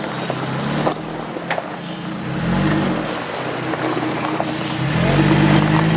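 Off-road 4x4 vehicle's engine working over a trail obstacle, revving up and easing off twice.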